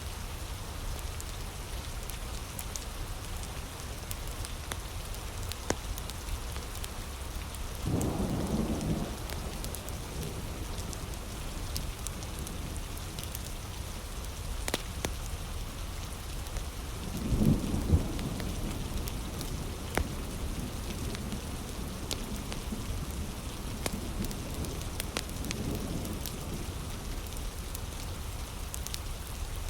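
Steady heavy rain with scattered sharp crackles from a wood fire. Low rumbles of thunder come through three times: about a quarter of the way in, a louder one just past the middle, and a faint one near the end.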